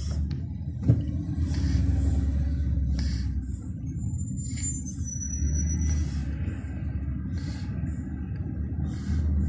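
Steady low road and engine rumble heard inside the cabin of a moving car, with a single short knock about a second in.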